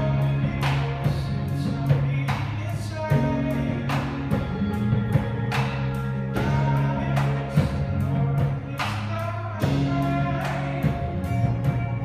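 A live rock band playing: drums struck in a steady beat under electric guitars holding low notes.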